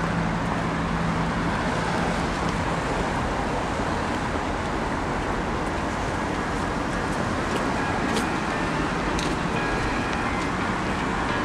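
Steady road-traffic noise, an even unbroken rush, with a low steady hum under it that fades out about two seconds in.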